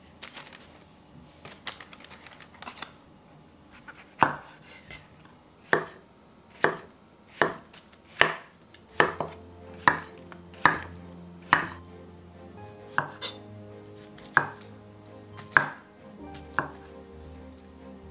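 Kitchen knife slicing shiitake mushrooms on a wooden cutting board: a steady series of sharp knife knocks on the board, a little more than one a second, after a few seconds of light handling.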